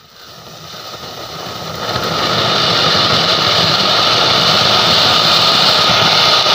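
Anar (cone-shaped flower-pot firework fountain) burning, a steady rushing hiss of sparks that builds over the first two seconds and then holds loud.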